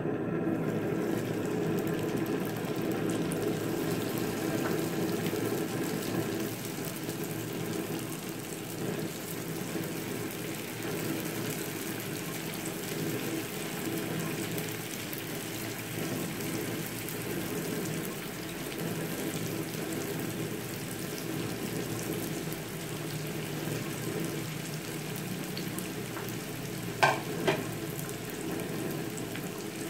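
Spring-roll-wrapped fermented cassava rolls deep-frying in hot oil in a frying pan: a steady sizzle, a little louder for the first several seconds. Two short clicks come half a second apart near the end.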